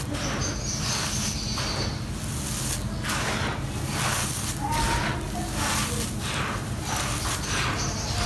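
Handfuls of loose, dry grey sandy dirt being scooped, crumbled and poured, the grains sifting down in an irregular run of gritty, hissing swishes and crunches, over a steady low hum.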